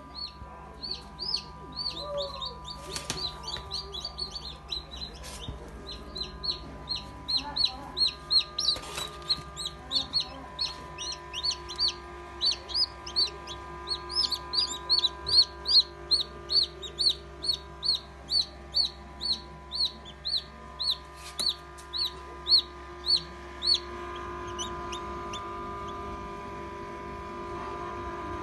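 Newly hatched chicken chicks peeping loudly and continuously: a fast run of high, downward-falling peeps, about two a second. The peeping stops near the end and a steady hum with a faint whine is left.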